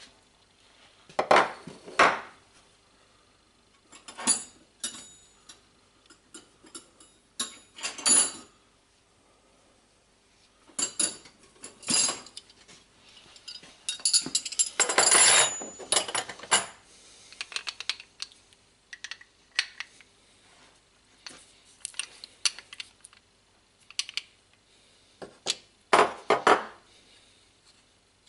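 Intermittent metallic clinks, knocks and clatters as an old air blow gun and hand tools are handled, set down and worked on at a wooden workbench. The sounds come in short separate groups with quiet gaps between them.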